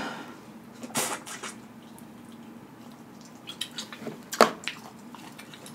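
Wet mouth sounds of eating boiled crawfish dipped in butter sauce: a wet smack about a second in, then a cluster of sharper clicks and smacks in the second half, the loudest a little after four seconds.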